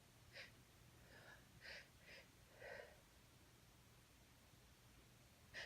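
A woman's faint, short breathy inhales, about five in the first three seconds and one more near the end, as a sneeze builds from a nose tickled by chhinkni snuff.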